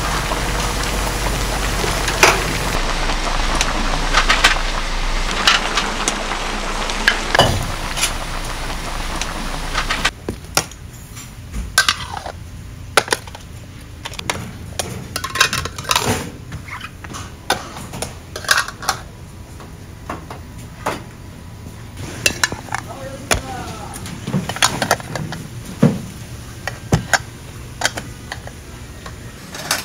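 Steady hiss of a row of gas burners under simmering stew pots, with the clinks of a steel ladle against the yellow aluminium pots. About ten seconds in the steady noise drops away, leaving frequent sharp clinks and clanks of the metal pots being handled and stacked.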